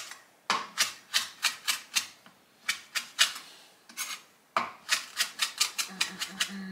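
Knife chopping scallions finely on a cutting board: runs of quick, sharp taps, the fastest run near the end at about five strokes a second.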